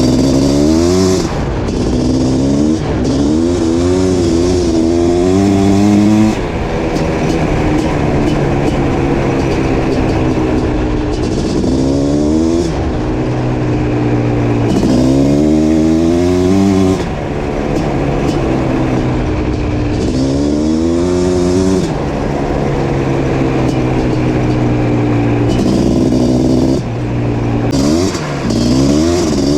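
Suzuki LT500R Quadzilla's 500cc liquid-cooled single-cylinder two-stroke engine, breathing through an FMF Fatty expansion chamber, under way. The engine revs climb several times in quick rising runs, each broken by a drop in pitch at a shift, with steady cruising stretches in between.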